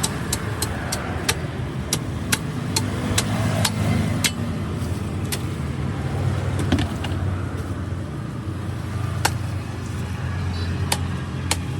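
An engine running steadily with a low hum, with many sharp clicks and knocks scattered over it.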